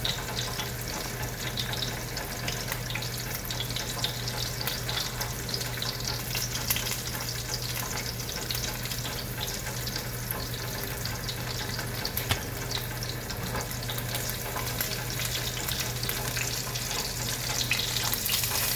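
Sausage sizzling and crackling in a hot frying pan, with a steady low hum underneath.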